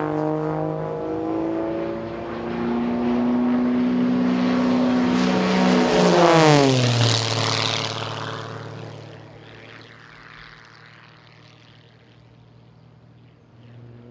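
Single-engine propeller aerobatic race plane, a Zivko Edge 540, flying past: the engine's drone builds, is loudest about six seconds in, drops sharply in pitch as the plane passes, then fades away.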